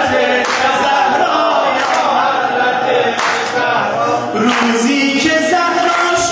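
A man singing a devotional praise song into a microphone, his melody rising and falling, with a sharp beat about every second and a half.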